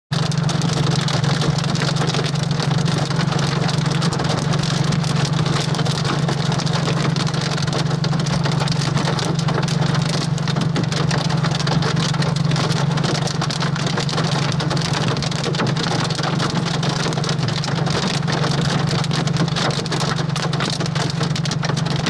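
Heavy rain pelting the roof and windshield of a moving vehicle, heard from inside the cabin over a steady low drone of engine and road noise.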